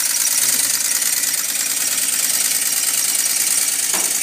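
Working model American LaFrance fire engine running steadily as it pumps water, a dense bright hiss over a small engine's steady running.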